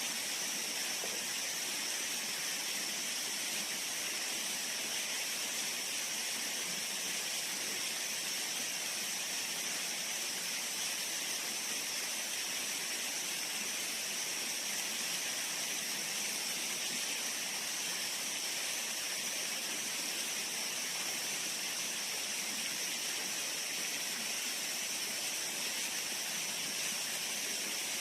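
Steady outdoor background hiss with a constant high-pitched drone held at one pitch throughout, and no distinct events.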